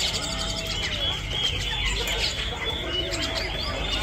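Many caged birds chirping and calling together, with a dense run of short high chirps and a few lower curved calls over a steady low hum.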